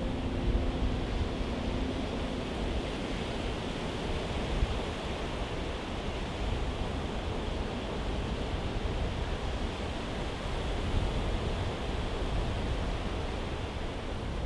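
Steady rushing noise, even and unbroken, with the last held piano notes dying away at the start.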